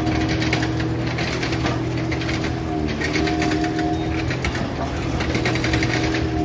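Komatsu hydraulic excavator's diesel engine running steadily, with a fast, even clatter and a steady whine over it.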